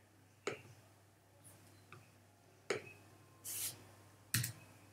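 Computer mouse or trackpad clicks: three sharp single clicks and a fainter one, spaced a second or two apart, with a brief soft hiss about three and a half seconds in.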